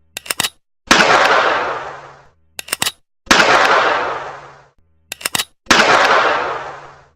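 Revolver fired three times, about two and a half seconds apart, each shot sharp and loud with a long fading echo. Each shot is preceded by a quick run of three or four clicks.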